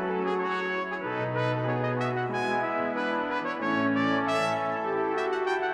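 Brass ensemble music: trumpets, trombones and horns playing slow, held chords over a shifting bass line.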